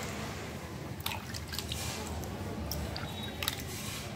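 Water flicked by hand from a tumbler onto moist compost soil in a pot, drops landing in scattered small ticks at uneven intervals. This is the single light moistening of a kitchen-waste compost.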